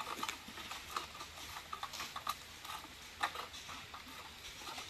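Irregular faint clicks and scrapes from a long-pole harvesting sickle working at the frond base of an oil palm to cut loose a fruit bunch.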